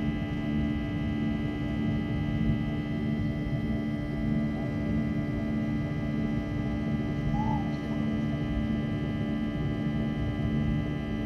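Steady drone of a jet airliner's turbofan engines heard inside the cabin: a low rumble with several held, unchanging tones.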